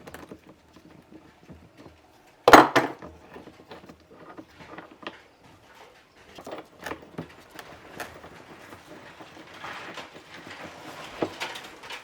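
Hand tools and bolts clinking and knocking against a motorcycle fuel pump and tank as its 17 mm mounting bolts are undone: scattered light clicks, with one loud knock about two and a half seconds in.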